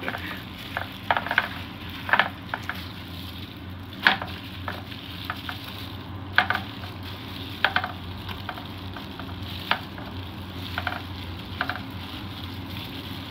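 Hands mixing and rubbing kimchi chili paste into cabbage: irregular short wet squelches and scrapes, over a steady low hum.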